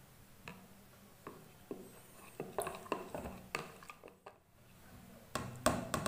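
Steel spoon clinking lightly against a beaker while stirring yeast powder into sugar water: a series of short, irregular clicks.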